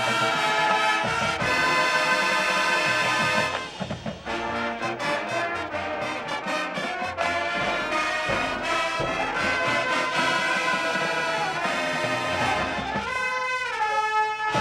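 High school marching band playing: full brass chords held out, giving way around four seconds in to a choppier stretch of short accented hits with drums, then the brass swelling back into sustained chords, with a downward pitch bend near the end.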